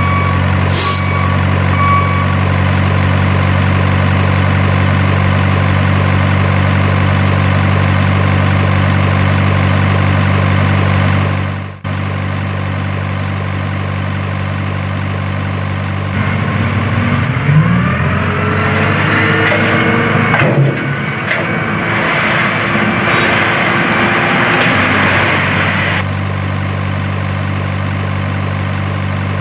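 Diesel truck engine idling steadily, a dubbed sound effect, that drops out for a moment near the middle. From a little past halfway, for about ten seconds, a rising whine and a rushing hiss join it as the toy dump truck's bed tips and its load pours out.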